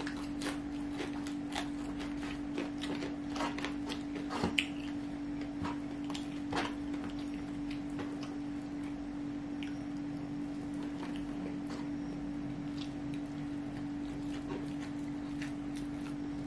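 Close-miked eating sounds: fingers working through fried rice on a metal tray and chewing, with crisp clicks and crackles that come thickly for the first several seconds and then thin out. A steady low hum runs underneath.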